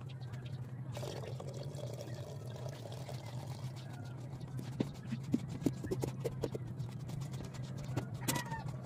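Coconut water trickling from a split young coconut into a plastic pitcher. About halfway through, a metal spoon takes over, scraping and clicking against the inside of the coconut shell as it loosens the soft meat. A steady low hum runs underneath, and a brief high call sounds near the end.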